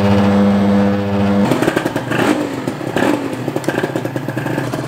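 Honda NSR250R's two-stroke V-twin engine running at a steady speed, then turning to an uneven, choppier running note about a second and a half in.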